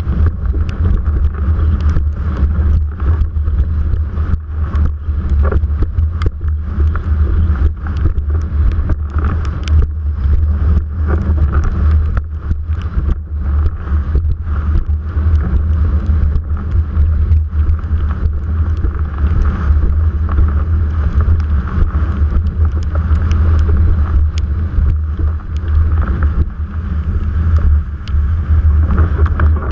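Wind buffeting the microphone of a mast-mounted GoPro on a windsurfer under way: a heavy, steady rumble. Irregular sharp clicks and knocks come from the board and rig on the chop.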